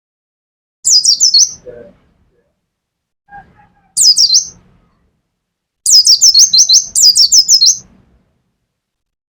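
Caged pleci (white-eye) singing in rapid bursts, called 'nembak': strings of quick, high, downward-sliding notes. It sings three phrases, the last and longest near the end.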